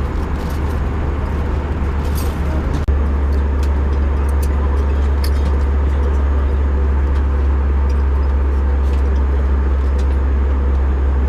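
Steady low drone of an Airbus A320 cabin, engine and airflow noise, with a few faint clicks. It steps up suddenly in level about three seconds in.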